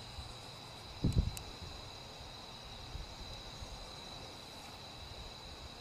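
Night insects singing in one steady high tone, with a brief low thump about a second in.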